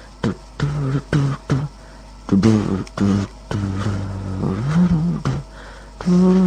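An amateur home-made song: a low voice sings held notes and wordless syllables that slide up and down in pitch, with short sharp clicks between the phrases.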